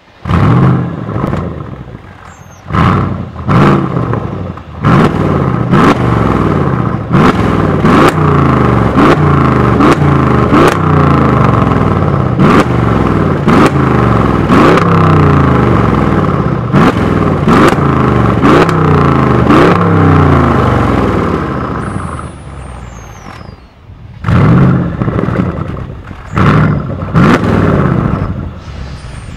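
Mercedes-Benz S500 Coupé (C217) 4.7-litre twin-turbo V8 through a MEC Design aftermarket exhaust in its loud 'Earthquake' setting. It starts with a loud flare that settles to idle, then gives a long run of quick throttle blips about one a second with sharp cracks among them. After that it drops back, revs twice more, and pulls away slowly near the end.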